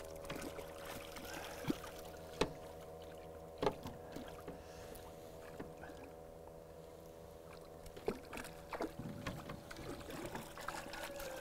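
A few light knocks and small water splashes as a trout is handled in a wooden landing net at the side of a boat. Under them runs a faint steady hum.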